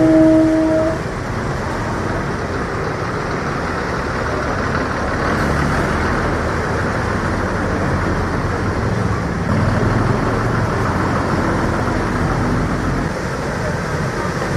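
Road traffic driving through floodwater: bus, auto-rickshaw and scooter engines running with tyres splashing through the water. A vehicle horn sounds once, about a second long, at the start.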